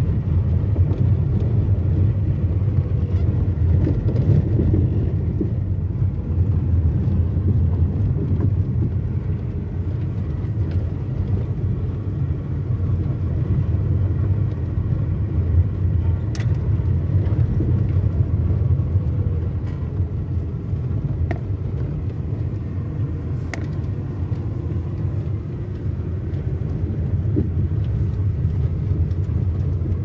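Car interior noise while driving on a rough dirt road: a steady low rumble of engine and tyres, with a few short sharp clicks in the second half.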